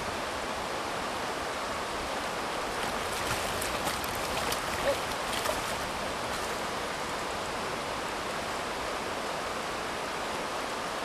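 River running fast over a stony bed, a steady rush of water, with a few short splashes about three to five seconds in as a hooked trout thrashes at the surface by the bank.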